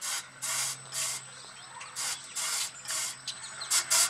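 Flour sifter's crank-driven agitator scraping across its screen, turned by a cordless right-angle drill: rhythmic rasping strokes about twice a second that come quicker near the end as the drill speeds up.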